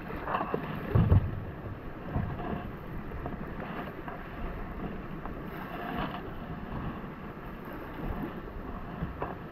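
Water around a kayak with wind buffeting the action camera's microphone, and a few soft knocks and splashes, the loudest about a second in.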